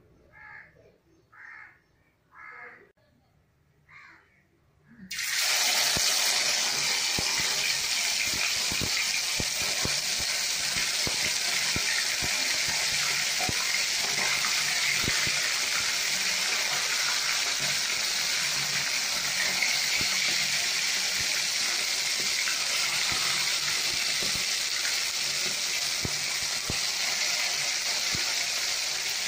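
Marinated fish deep-frying in hot oil in an aluminium kadai: a loud, steady sizzle with fine crackling that starts suddenly about five seconds in, after a few seconds of near quiet.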